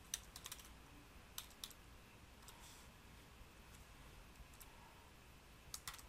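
Faint computer keyboard keystrokes: scattered, irregular taps with a quick little run near the end.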